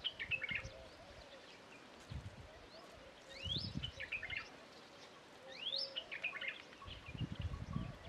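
Indian robin singing: a phrase made of a quick rising whistle followed by a short jumble of notes, heard in full twice, with the tail of another phrase at the start. Low rumbles come and go underneath.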